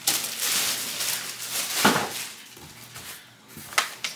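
Plastic wrapping crinkling and rustling as a wrapped bag is handled, with a sharp knock about two seconds in, then quieter handling and a short click near the end.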